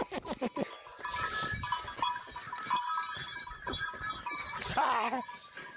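Cattle scuffling on stony ground: scattered knocks and clatter under a steady bell-like ringing, with one wavering call about five seconds in.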